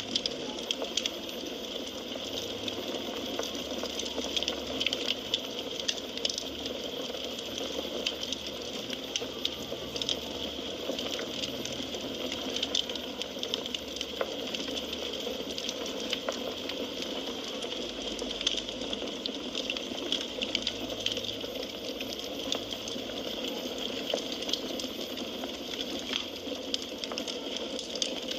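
Firewood burning in a fireplace: a steady hiss with a constant scatter of small crackles and pops.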